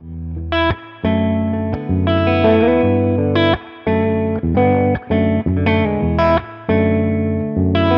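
Semi-hollow 335-style electric guitar with ReWind Electric TAF-style humbucker pickups, played through an amp with some drive: a run of strummed chords and single notes with short breaks between phrases and a bent note.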